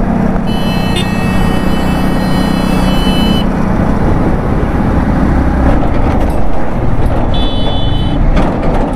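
Wind and road noise of a Yamaha MT-15, a 155 cc single-cylinder motorcycle, riding at speed on a highway, with a steady engine hum underneath. A high horn sounds for about three seconds near the start and briefly again near the end.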